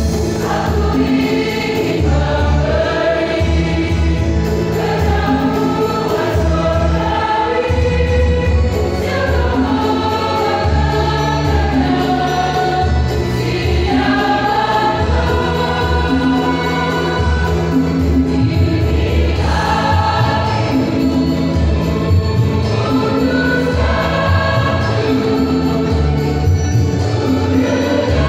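Church choir of mostly women's voices singing a Christian song together, over steady held low accompaniment notes.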